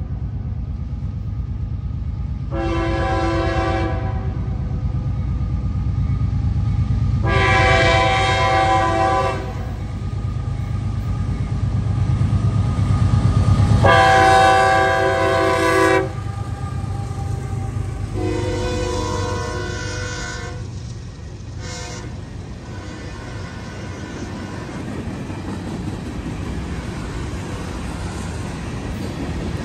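CSX freight train's diesel locomotives approaching and passing, sounding their multi-note air horn in four long blasts and then a short one, over the deep rumble of the engines. After the horn the freight cars roll past, with steady wheel-on-rail noise.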